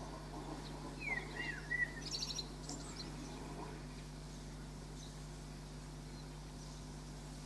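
A few short bird chirps about a second in, followed by two quick high trills, over a steady low hum.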